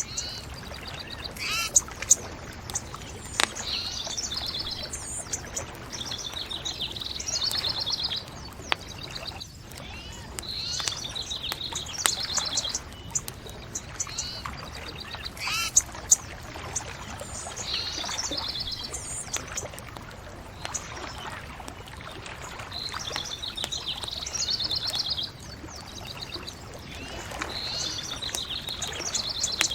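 Birds singing short trilled phrases every few seconds over a steady hiss, with scattered sharp pops and crackles from a bonfire.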